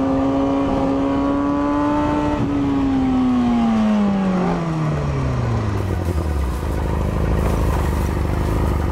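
Motorcycle engine held at high revs, its pitch rising slightly. About two and a half seconds in, the revs start falling steadily over about three seconds, settling into a low steady hum, with a rough hiss joining near the end.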